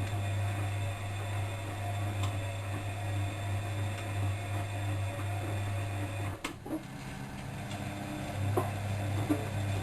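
Bosch WFM3010 washing machine in its wash cycle: the drum motor hums steadily, stops with a click about six seconds in, and starts turning again about two seconds later, with a few soft knocks of the tumbling laundry.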